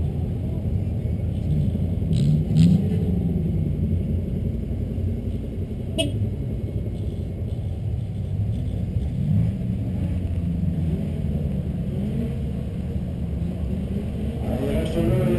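Ford F-150 EcoBoost pickup's engine idling as the truck creeps forward, a steady low rumble with other cars' engines running around it. A few brief clicks about two and six seconds in.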